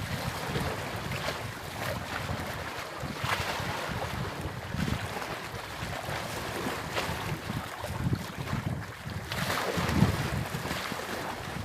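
Wind buffeting the microphone in uneven gusts, over a steady wash of sea waves.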